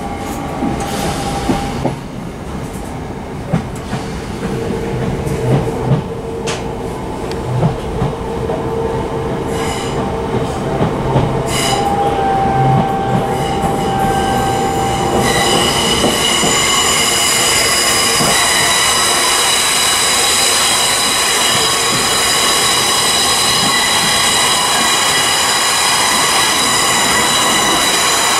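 Southern Class 455 electric multiple unit heard from inside the passenger saloon, rolling through a station with a few sharp clicks and a brief squeal. About halfway in a louder, steady running noise with several high whining tones sets in and holds.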